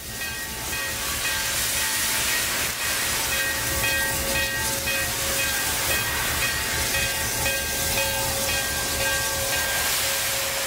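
Steam locomotive venting steam, a loud steady hiss over a low rumble.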